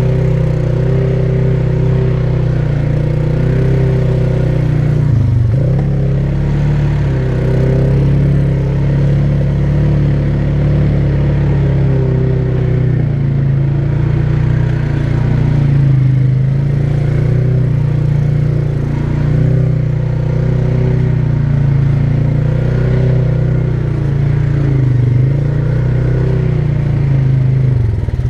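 ATV engine running steadily under way, its pitch rising and falling a little with the throttle. It briefly drops off about five seconds in and again near the end.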